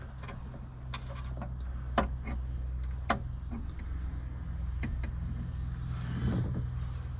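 A few sharp clicks and knocks from hands and tools working on a car aerial mount, over a steady low hum.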